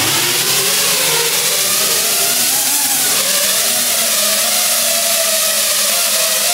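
Four ducted lift fans of a large RC model flying aircraft carrier running at high power: a loud, steady rushing whine whose pitch wavers a little as the model lifts off the floor and hovers.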